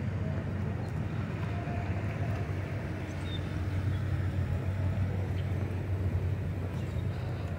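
Steady low rumble of car traffic on a busy town street, with no single event standing out.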